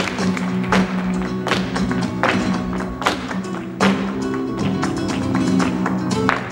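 Flamenco bulerías music with guitar, punctuated by sharp percussive accents about every three-quarters of a second.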